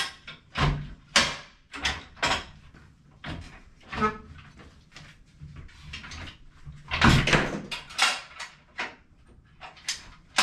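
Irregular clunks and clicks of a shower-chair transfer system's bridge being fitted and latched between the rolling commode chair and the shower base frame, with the loudest knock about seven seconds in.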